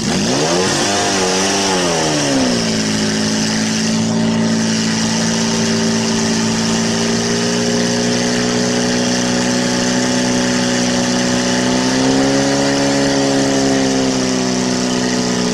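Portable fire pump engine revving up and down briefly, then held running at high speed as it pumps water to the hose lines, its pitch lifting slightly near the end. A steady hiss runs under it.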